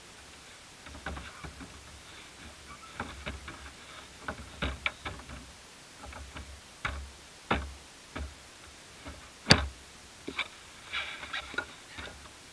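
Irregular light knocks and clicks with low thuds, one sharper click about three quarters of the way through, from a small plastic boat rocking and bumping at the water's edge.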